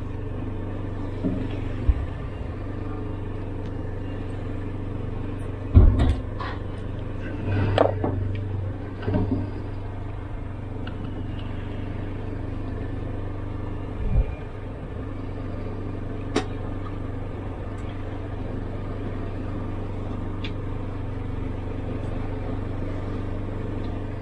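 Fishing boat's engine running with a steady low drone, with a few knocks and clatter of tackle being handled on deck, the loudest about six seconds in.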